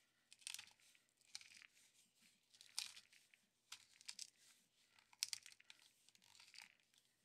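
Ceramic burrs of a stainless-steel Firebox G2 Micro pepper grinder cracking black peppercorns as it is twisted by hand, heard as faint, short crunching bursts about once a second.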